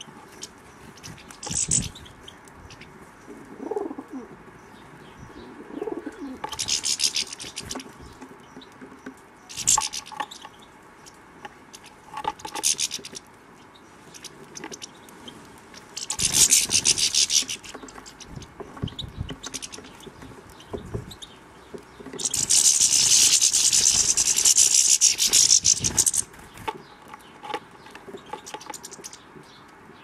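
European goldfinches twittering in short, busy bursts, with a longer and louder spell of twittering about two-thirds of the way through, among other small garden birds. A couple of lower gliding calls come a few seconds in.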